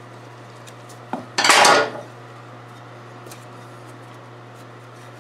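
A short metallic clatter about a second in, lasting under a second, as metal parts are handled at the ATV's aluminium radiator and scoop. A steady low hum runs underneath.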